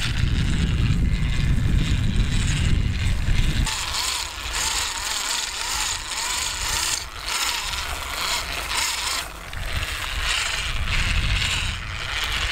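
Electric hand mixer running with its steel beaters churning eggs into a thick creamed butter-and-sugar mixture. About four seconds in, the sound changes from a heavy, low churning to a lighter, higher whir.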